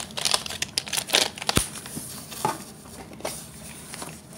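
Cosmetics packaging handled over a cardboard box: rustling and crinkling with a string of small clicks and taps as plastic lip gloss tubes are put away and a small cardboard lipstick box is picked out. The handling is busiest in the first second and a half, with one sharp click about a second and a half in.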